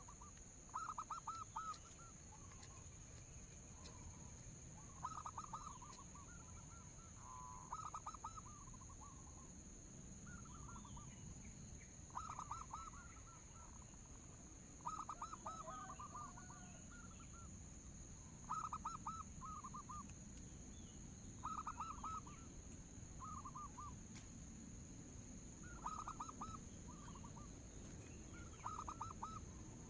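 Zebra dove (perkutut) song: short bursts of rapid staccato cooing, repeated every second or two. It is played as a lure call to draw other zebra doves into singing.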